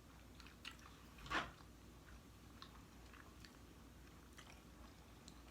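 Faint chewing and wet mouth sounds of someone eating chicken tortellini alfredo, with a louder mouth sound about a second and a half in.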